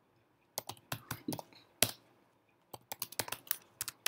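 Typing on a computer keyboard: a quick run of keystrokes ending in one louder stroke, a pause of nearly a second, then another run of keystrokes.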